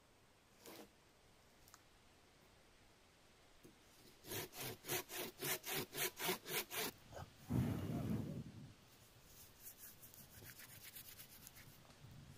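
Rhythmic rasping strokes of a tool on a dry branch, about three a second for a few seconds, followed by a louder low rushing sound and then fainter, quicker scraping.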